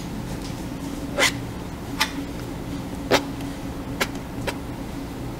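About five short, sharp scratches as a tool is drawn across watercolour paper, scraping light lines out of a half-dry wash. The paint is just dry enough for the scraping to lift cleanly.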